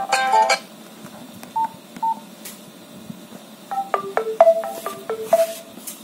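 Nokia Asha 210 phone playing built-in tone previews through its small speaker. A ringtone melody cuts off about half a second in, two short beeps follow, then a short run of chiming alert tones plays near the end.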